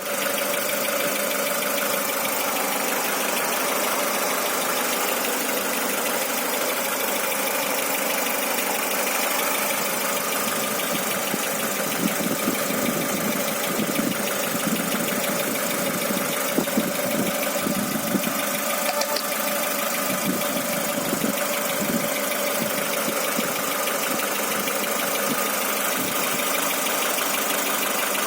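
An engine running steadily with an extraneous knock, which comes through as irregular low knocks over the middle stretch.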